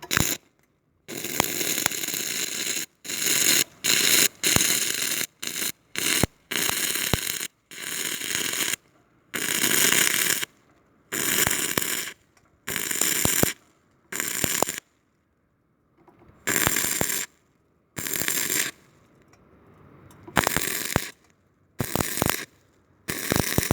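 Stick-welding arc fed by three batteries wired in series, striking up on a piece of iron in repeated bursts of roughly half a second to two seconds, going out and restriking over and over.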